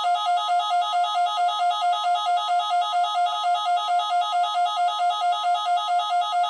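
Weather radio receiver's alert alarm: a loud electronic warble, flipping between two pitches about four to five times a second, set off by the weekly test of the weather radio warning alarm.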